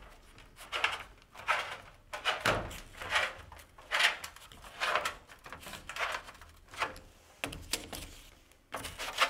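Sheet metal being folded along a Hilmor pocket brake bar to form a half-inch hem: short metallic scrapes and flexing pops, about one a second.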